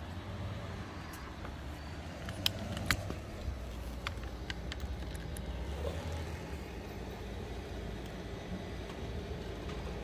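Low rumble of a Rolls-Royce Dawn, with its twin-turbo V12, rolling slowly up and stopping. A few sharp clicks come about two and a half and three seconds in.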